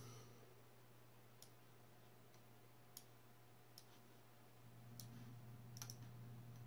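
A few faint computer mouse clicks, about five spread through a few seconds, over a low steady hum.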